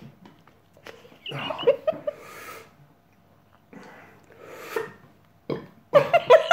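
A man's muffled laughing and gasping through his hand, in short bursts, as the heat of a very hot chilli sauce hits him.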